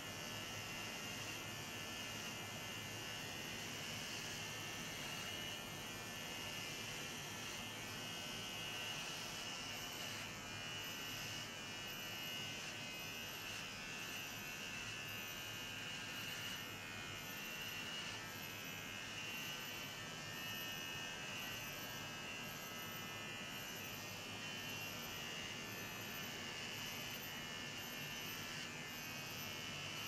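Electric hair clippers running steadily as they are drawn over a scalp, shaving the hair off a head.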